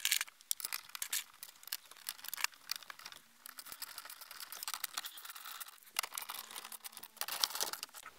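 Hands handling a rubber shift boot and plastic parts around a car's manual shifter: irregular small clicks with crinkling and rustling.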